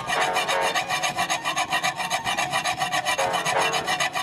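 Knife blade scoring a disc of shaobing dough on a board: a fast, even run of rasping strokes, several a second, as the pattern is cut around the edge.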